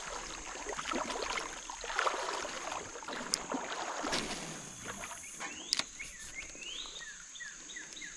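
Sloshing and splashing of legs wading through shallow creek water, with a couple of sharp clicks about a third and two thirds of the way in. A quick series of short falling chirps follows near the end, over a steady high hiss.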